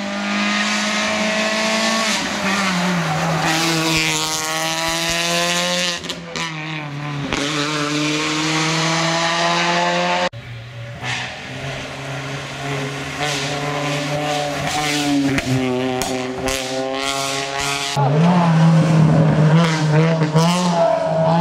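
Peugeot 206 rally car engine at full throttle, revving up through the gears: its pitch climbs, then drops sharply at each gear change, several times over, as the car comes through the stage.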